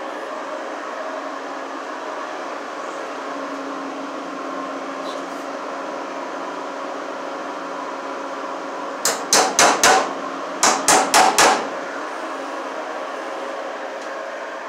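Hammer driving the nails of a plastic electrical box into a wooden roof purlin: two quick runs of four blows a little over halfway through.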